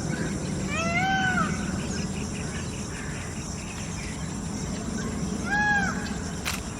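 An animal's call, twice: two separate pitched cries, each rising then falling over about half a second, over steady outdoor background noise.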